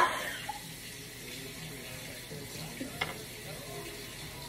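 Water running steadily from a tap, with a short knock right at the start and a sharp click about three seconds in.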